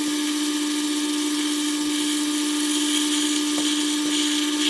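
Metal lathe parting off a 3/8-inch brass bar, played back fast: a steady, unchanging whine over an even hiss.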